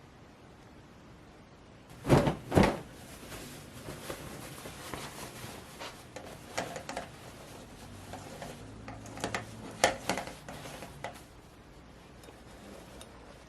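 Kitchen handling sounds: two sharp knocks like a cupboard or drawer closing a bit after two seconds in, then scattered light clatter and rustling of containers being handled, which stops near eleven seconds in.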